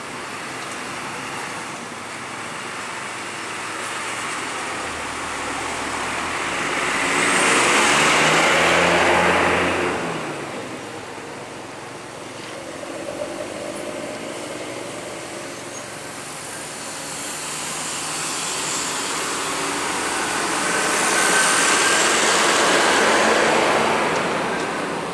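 Two large vehicles, buses of a passing convoy, drive past one after another. Each one's engine and tyre noise swells and then fades, the first about eight seconds in and the second near the end.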